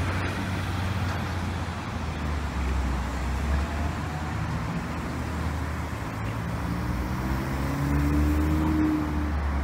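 Steady city traffic noise with a low engine rumble. From about six seconds in, a vehicle's engine note rises slowly in pitch.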